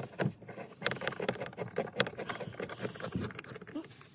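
Hand screwdriver driving Torx screws into a car door's plastic trim panel: a run of small irregular clicks and scrapes as the driver and screw work against the plastic.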